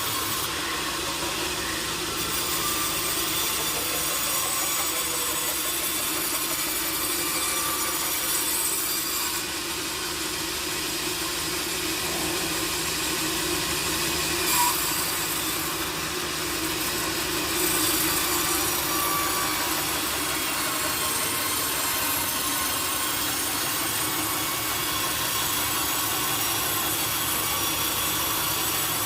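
Sawmill saw running steadily through teak wood, a continuous cutting noise, with one sharp knock a little past halfway.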